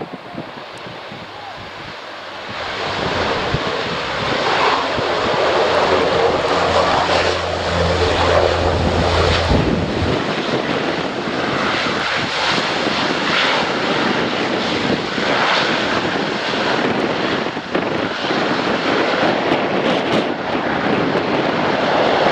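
A CASA CN-235's twin turboprop engines and propellers running on the landing roll after touchdown. The sound grows much louder about two and a half seconds in, with a low hum that drops away about ten seconds in, then runs on steadily.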